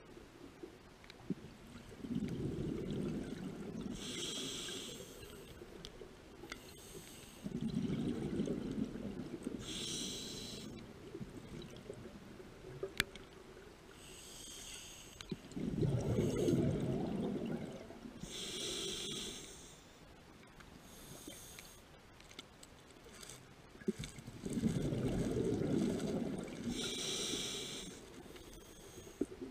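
Scuba diver breathing through a regulator underwater: four slow breaths, each a low rumble of exhaled bubbles lasting a couple of seconds, followed by a short, high hiss of inhaled air through the regulator.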